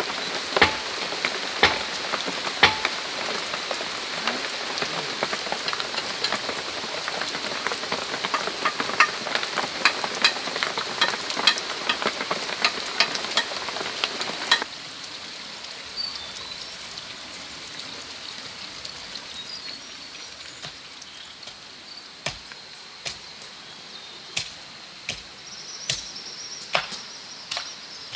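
Rain pattering on a thatched roof and broad leaves, full of sharp drips. About halfway through it cuts to a quieter background of scattered drips and knocks, with a few faint high chirps.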